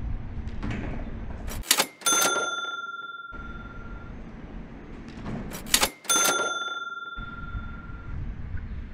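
Basketball hitting a metal hoop rim three times, about every four seconds: each shot gives a couple of sharp clanks and then a ringing metallic tone that fades over a second or two. Wind rumbles on the microphone between the shots.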